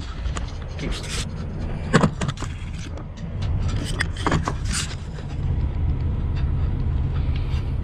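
Steady low rumble of a running engine, with a few sharp clicks and knocks of metal parts being handled, the loudest about two seconds in.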